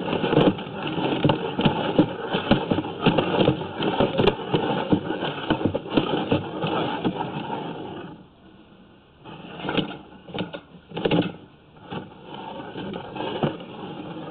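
Drain inspection camera and its push rod rattling and scraping as they are fed along a sewer pipe, with dense irregular clicks. The noise drops away about eight seconds in, as the camera stops at a root-grown junction, then comes back in short bursts.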